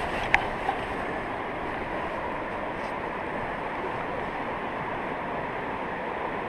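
Steady rushing of the river water at the Gaulfossen rapids on the Gaula, an even wash of noise, with one sharp click about a third of a second in.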